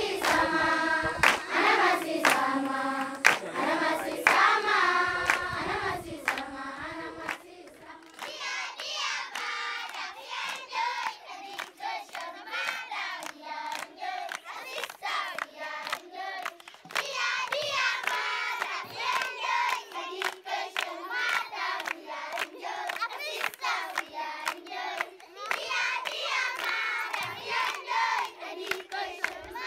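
A large group of children singing together while clapping their hands in time.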